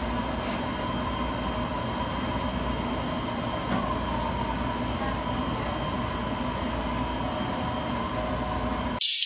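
Anti-gravity treadmill running: a steady mechanical hum with a few held tones, from its belt motor and the blower that keeps the air chamber around the legs pressurised.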